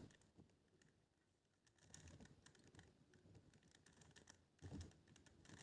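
Faint, irregular clicking of a plastic Rubik's cube's layers being turned by hand, starting about two seconds in.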